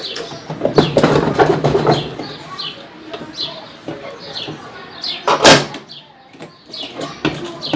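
Metal knocks and rattles of hand-tool work on a washing machine's mechanism, busiest in the first two seconds, with one loud knock about five and a half seconds in. A bird chirps over and over in the background.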